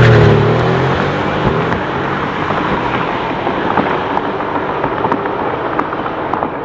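Tuned drag car engine passing at full throttle, its pitch dropping as it goes by, then fading down the runway. Scattered sharp crackles and pops from the exhaust follow as it comes off the throttle.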